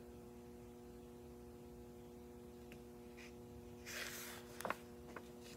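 A large picture-book page being turned: a brief papery rustle about four seconds in, followed by a light click, over a faint steady hum.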